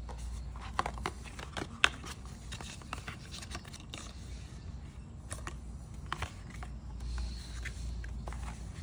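Hands handling a Quad Lock phone case and its paper and cardboard packaging: scattered light clicks, taps and rustles, the sharpest a click just under two seconds in.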